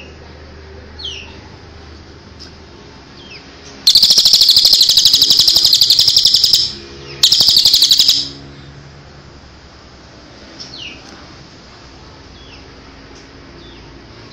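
Cililin (crested jay) giving its loud machine-gun-like rattle, the 'tembakan' call: one burst of nearly three seconds about four seconds in, then a shorter one after a brief pause. Faint short downward chirps sound before and after.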